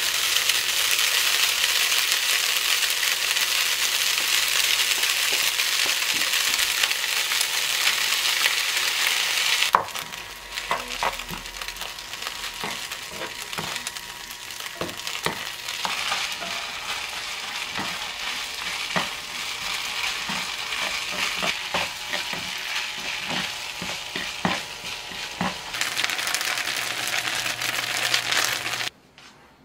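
Gochujang fried rice and glass noodles sizzling in a nonstick frying pan. A loud, steady sizzle drops suddenly about ten seconds in to a softer sizzle, with wooden spatulas tapping and scraping the pan as the food is stirred. The sound cuts off near the end.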